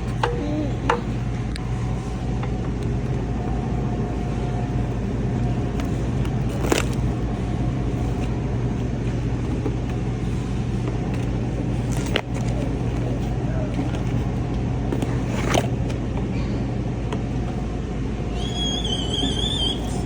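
Steady low machine hum of a large store's refrigeration and ventilation, with a few sharp clicks of handling and a short, high wavering squeal near the end.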